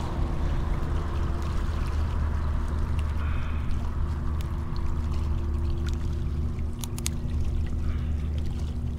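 Steady outdoor rumble of wind on the microphone and water washing against the rocks, with a faint steady hum underneath. A few sharp clicks about seven seconds in as the live blue crab and hook are handled.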